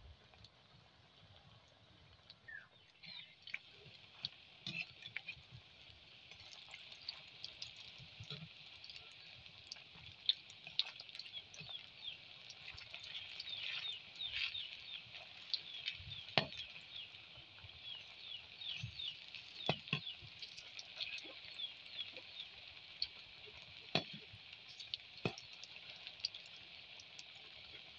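Egg-noodle pakoras deep-frying in hot oil in an iron kadai: a steady sizzle full of small crackling pops that grows busier after the first few seconds. A few sharp clicks come as a metal slotted spoon strikes the pan while turning the fritters.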